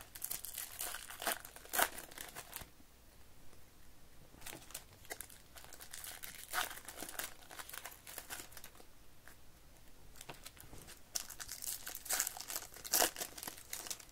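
Foil wrapper of a Topps baseball card pack crinkling and tearing as it is opened by hand, in irregular bursts of rustling.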